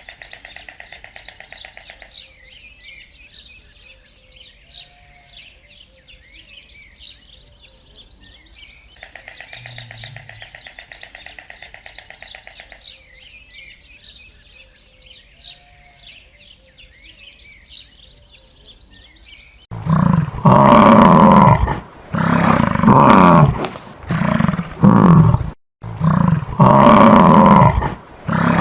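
Outdoor ambience of birds chirping over a rapid, even pulsing call, looping. About two-thirds of the way through, a large animal starts roaring loudly, one roar after another, each about a second long.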